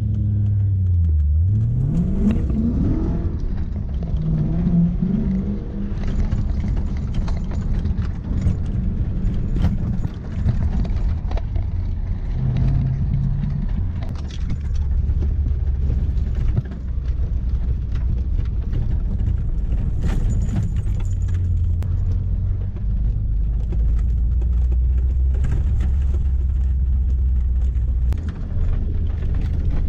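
Toyota Hilux's swapped-in Lexus 1UZ-FE V8 heard from inside the cab while driving: the revs rise over the first few seconds, then the engine runs steadily at low revs, with scattered knocks and rattles from the truck.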